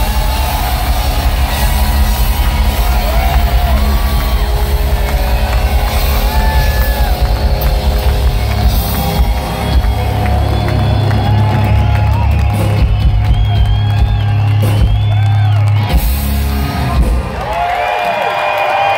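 Live rock band playing loud through a concert PA, closing on a long held low chord that cuts off about three seconds before the end. The crowd then whoops and cheers.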